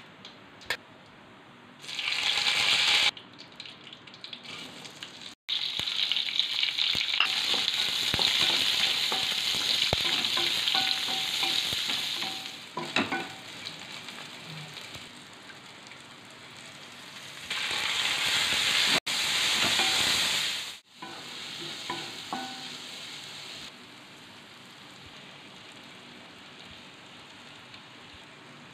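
Hot oil sizzling in a non-stick kadai as tempering seeds, then sliced shallots and tomatoes, are fried and stirred with a wooden spatula. The loud sizzle comes in several stretches that start and stop abruptly, and it is quieter from about two-thirds of the way in.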